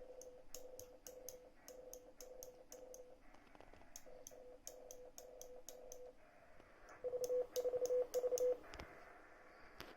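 Morse code (CW) sidetone from a WinKeyer3-based keyer: a steady tone near 500 Hz keyed into dots and dashes, with a sharp click at each element. It sends three runs of characters, and the last run, about seven seconds in, is louder.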